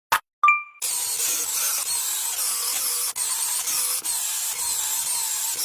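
A woodworking tool working wood with a steady noise, starting just under a second in after a click and a short high ding.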